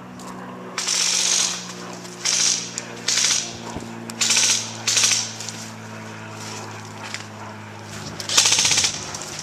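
Airsoft rifle firing on full auto in about six short bursts of rapid clicking, the last and loudest near the end.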